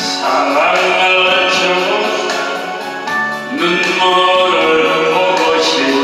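Korean trot song: a man singing through a handheld microphone over a backing track with a steady beat.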